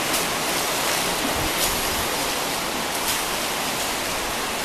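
Shallow river water rushing steadily, with a few faint splashes as elephants wade and a keeper throws bowlfuls of water over them.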